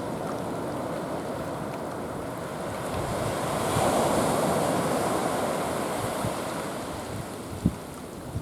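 Sea waves washing in, with one wash swelling louder about halfway through and then fading, and wind buffeting the microphone. A single sharp knock comes near the end.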